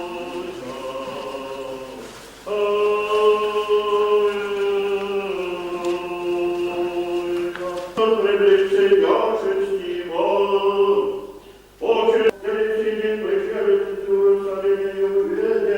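Church choir chanting without instruments in slow, long-held notes, with short breaks between phrases.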